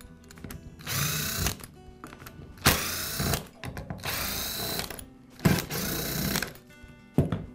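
Cordless power screwdriver backing screws out of a plastic drill housing in four short runs of about a second each, the motor whining up and down in pitch with each run, then a brief blip near the end.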